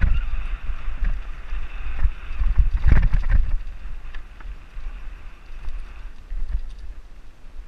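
Mountain bike descending a dirt singletrack: a steady low rumble of wind on the microphone and tyres rolling over dirt, with a cluster of knocks and rattles about three seconds in as the bike goes over rough ground, then a quieter stretch.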